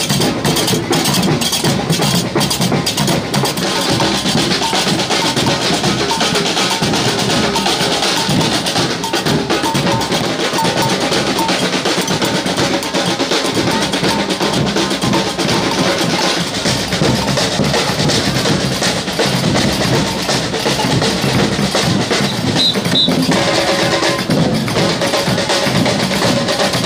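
Drums and other percussion playing, loud and continuous.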